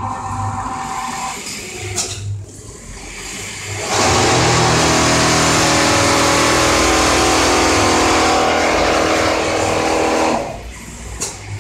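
Richpeace automatic template sewing machine's sewing head running at high speed as it stitches, a steady mechanical drone that starts suddenly about four seconds in and stops about six seconds later.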